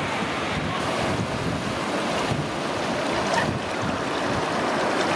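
Steady wind buffeting the microphone over the rush of sea water.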